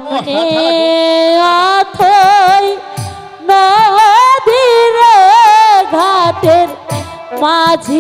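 A woman singing a Bengali jatra folk song into a microphone, with long, wavering, ornamented held notes over musical accompaniment.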